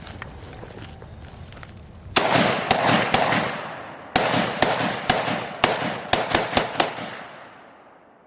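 Draco AK-pattern pistol fired rapidly, about a dozen shots starting about two seconds in, with a short pause after the first four. Each shot echoes, and the echoes die away at the end.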